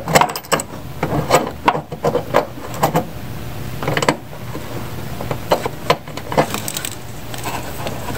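Light metallic clicks and knocks of a heavy battery cable lug and nuts being handled and fitted onto the brass studs of an ANL fuse holder. A steady low hum runs underneath.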